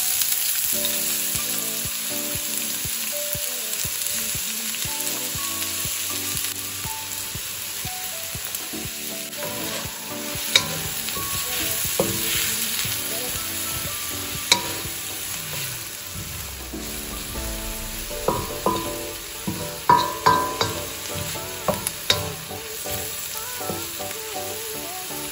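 Diced onions sizzling steadily in hot oil in a nonstick pan. From about ten seconds in, a wooden spatula stirs them and knocks against the pan now and then, with a quick run of taps near the end.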